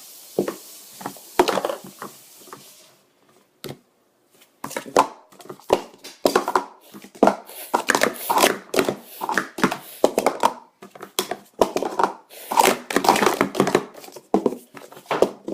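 Plastic sport-stacking cups clacking quickly as they are stacked up and down in a speed-stacking run. There are a few clicks, then a short pause, then a dense, rapid string of clatters from about five seconds in.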